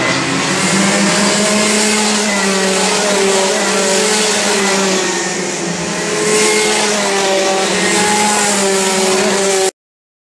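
Several Sodi rental karts' two-stroke Rotax Max engines running at racing revs as the karts pass, their notes overlapping and rising and falling in pitch. The sound cuts out abruptly near the end.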